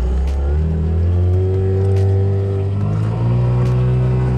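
A motor vehicle's engine running steadily, its pitch stepping up about three seconds in as it revs higher.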